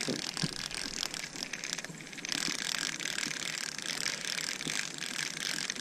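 Spinning reel being cranked, its gears clicking rapidly and evenly as line is wound in, easing off briefly about two seconds in.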